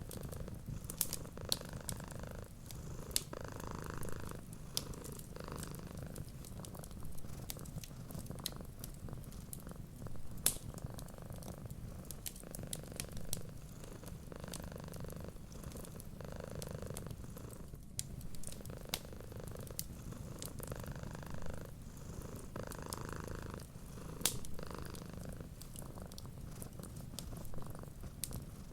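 A cat purring steadily, a low rumble that swells in slow breathing cycles every couple of seconds, with scattered sharp crackles of a wood fire over it.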